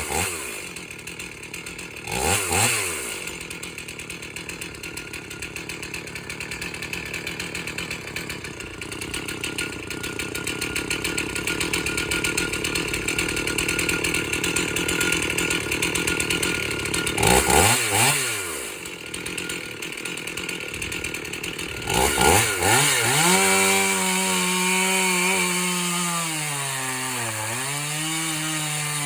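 Stihl 044 two-stroke chainsaw idling, revved up and back down briefly twice. About three quarters of the way through it is held at high revs, its pitch sagging and recovering as it works under load, cutting into a log.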